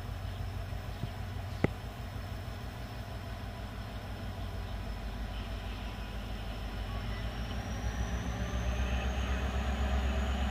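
Diesel locomotive DE 33065 approaching at low speed with a freight train, its engine running with a steady low rumble that grows louder as it nears. A high whine rises in pitch about two-thirds of the way through, and a single sharp click comes about a second and a half in.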